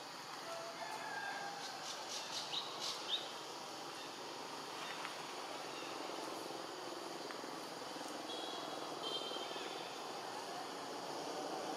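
Outdoor forest ambience with birds calling: a quick run of short high chirps about two to three seconds in, and a brief high warbling call a little past the middle.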